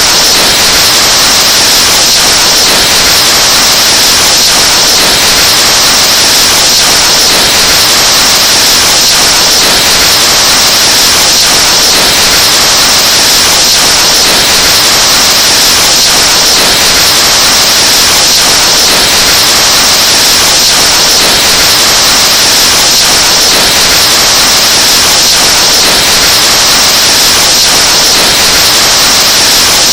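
Breath blown into a microphone, amplified until it distorts into a very loud, harsh, steady hiss with no pauses.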